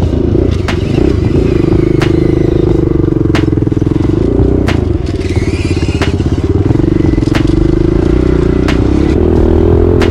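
Dirt bike engine running close to the microphone at a fairly steady speed, its pitch rising and falling a little, with sharp clicks about once a second over it.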